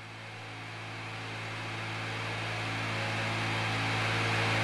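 Electronic music: a white-noise riser swelling steadily louder over a sustained low synth drone.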